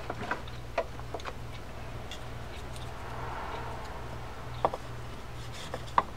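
A few light clicks and taps as a small tool scrapes old grease out of a D.A.M. Quick spin reel's metal housing, over a steady low hum.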